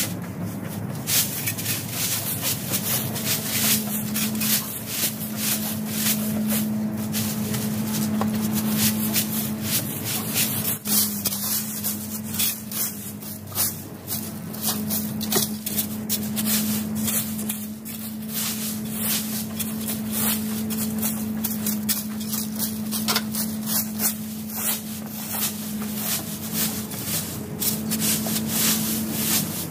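Leaf rake scraping and rustling through fallen leaves on grass in repeated, irregular strokes, with a steady low hum underneath.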